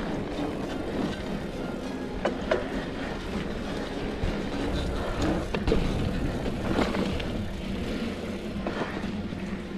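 Mountain bike riding over a dirt trail: a steady rumble of tyres and wind on the microphone, with scattered rattles and knocks from the bike.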